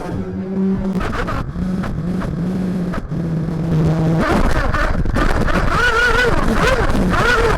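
Nitro engine (tuned Max Power Storm) of a Kyosho MP9 TKI4 1/8-scale buggy, heard from a camera on board the car: it runs at low, fairly steady revs for about four seconds, then gets louder with the revs rising and falling repeatedly as the car is driven on the throttle.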